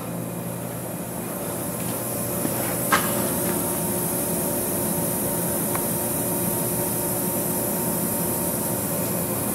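Steady hum and hiss of a running thermal desorption unit with its stainless steel rotary dryer, with a few faint held tones under the noise. There is a faint click about three seconds in.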